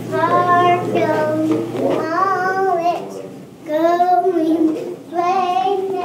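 A child singing in a high voice, about four short phrases of held, gliding notes with brief breaks between them.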